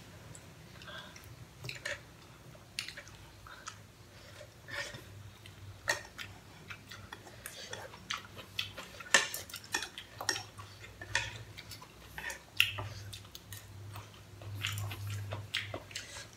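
Chopsticks and a spoon clicking and scraping against a saucepan while pasta is eaten from it, in scattered short taps, with some chewing, over a faint low hum.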